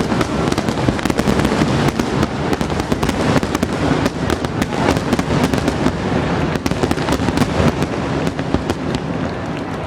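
Large aerial fireworks display going off in a dense, continuous volley: many rapid crackling pops and bangs over a steady low rumble of shell bursts.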